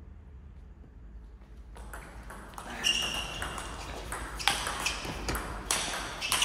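Table tennis ball hit back and forth in a doubles rally: quick sharp clicks of the ball off the rackets and the table, about two a second, starting a couple of seconds in.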